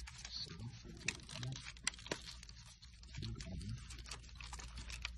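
Faint rustling and scattered small clicks of handling noise, with no steady machine sound.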